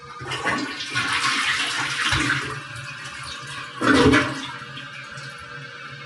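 Toilet flushing: a rush of water into the bowl for about two seconds, then a second, louder surge about four seconds in before it dies away.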